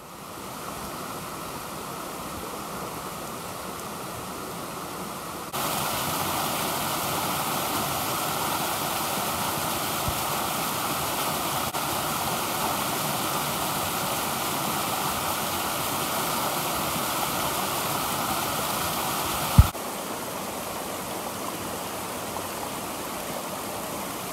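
Rushing water of a small mountain stream tumbling over rocks and cascades, a steady noise that gets louder about five seconds in and drops back a little near the end. A single brief thump comes just as it drops.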